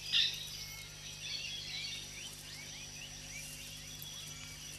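Rainforest ambience: many short bird chirps and whistles, one louder call just after the start, over a steady high insect buzz and a low hum.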